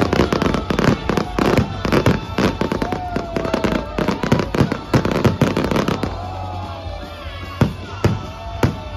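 Fireworks display: a rapid barrage of aerial shell bursts that thins out after about six seconds to a few separate loud bangs near the end, with music playing underneath.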